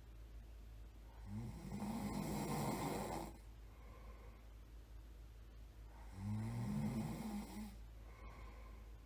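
A person snoring in sleep: two loud, rattling snores about five seconds apart, each lasting one and a half to two seconds, with quieter breathing between.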